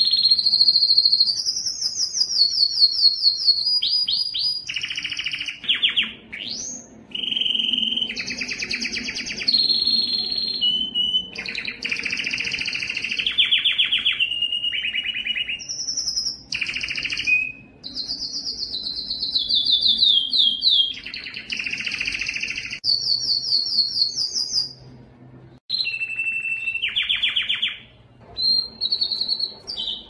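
Domestic canary singing: a steady run of fast trills, each phrase a rapid string of repeated high notes lasting one to two seconds, some gliding down in pitch, with short breaks between phrases and a longer pause a few seconds before the end.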